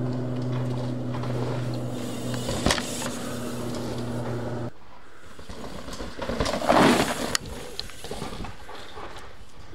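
Mountain bike riding a dirt trail. A steady buzz runs for about the first five seconds and stops abruptly. Then come tyres crunching and scrubbing over loose dirt, loudest about seven seconds in.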